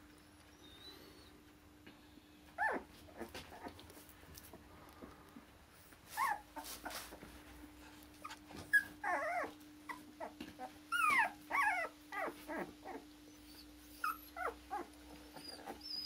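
Akita puppies whining and yelping as they wrestle: short high calls that bend in pitch, coming in little clusters and thicker in the second half, over a faint steady hum.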